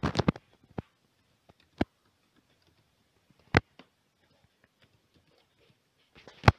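Computer mouse clicks: a quick run of clicks at the start, then single sharp clicks spaced a second or more apart, the loudest about three and a half seconds in, and a few more near the end.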